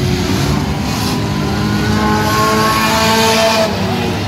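Engines of compact cars racing on a dirt oval, several running at once. About halfway through, one engine revs up, rising in pitch and getting louder for a second or two before dropping away near the end.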